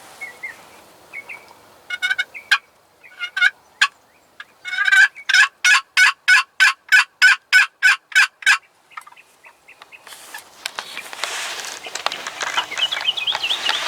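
A series of turkey yelps: a few scattered notes, then a steady run of about fourteen evenly spaced yelps, roughly three a second. Near the end a rustling noise comes in.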